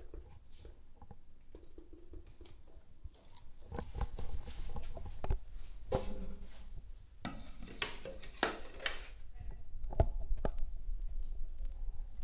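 Handling noises from a plastic spirit level being set against a tiled wall: scattered light knocks and clicks, with a few short rustling bursts near the middle.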